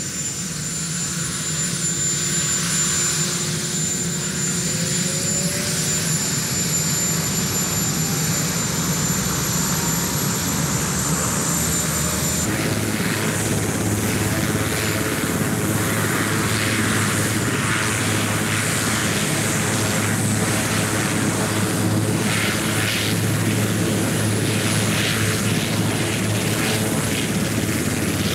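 Marine One, a Sikorsky VH-3 Sea King helicopter, starting up: a turbine whine climbs in pitch as the engines spool up and the main rotor begins to turn. About twelve seconds in, the sound changes abruptly to a steady rotor and turbine drone.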